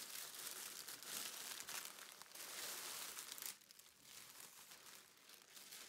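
Faint crinkling and rustling of a thin plastic mailing bag being handled as a cross stitch kit is pulled out of it; it dies away about three and a half seconds in.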